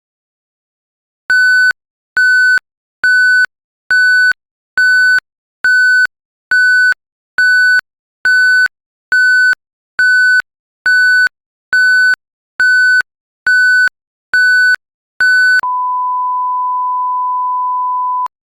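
Electronic emergency-alert beeps, a rapid run of identical high buzzy beeps at about one a second. Then one steady, lower pure tone that holds for a few seconds and cuts off.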